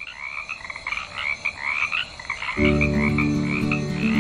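A chorus of frogs croaking, many short repeated calls overlapping. About two and a half seconds in, a low, steady, music-like drone of held notes joins under the calls and becomes louder than them.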